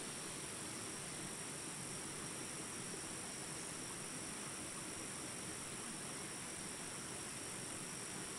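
Steady high-pitched insect chorus over an even background hiss, unchanging throughout.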